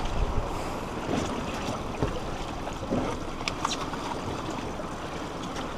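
Steady wind and sea-water noise around a small fishing boat, with a few faint clicks.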